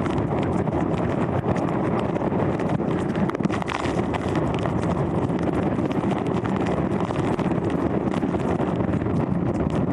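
Hurricane winds buffeting the microphone: a loud, steady rush with a rapid scatter of crackling hits.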